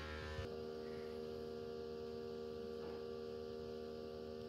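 Faint steady hum made of several held tones, with no other sound over it.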